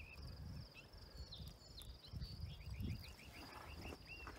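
Faint outdoor ambience: a bird chirping in quick runs of short notes over a steady high trill, with low rumbles coming and going.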